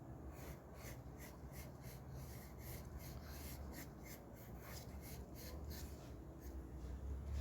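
Pencil sketching on paper: faint, quick scratchy strokes, about three a second, over a low steady hum.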